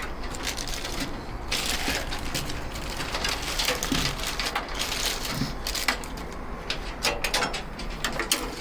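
Handling noise of parts being fitted onto a steel tool cart: a steady run of light clicks, rubs and rattles, with a couple of soft knocks.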